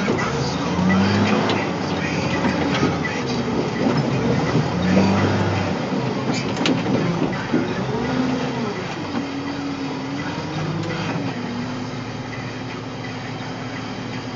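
Caterpillar 525B skidder's diesel engine heard from the cab, its pitch rising and falling as the throttle changes, with rattles and clanks from the machine. About eleven seconds in it settles to a steady note.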